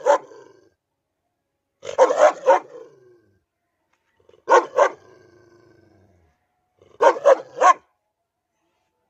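A large white chained dog barking in four quick bursts of two to four barks each, a couple of seconds apart.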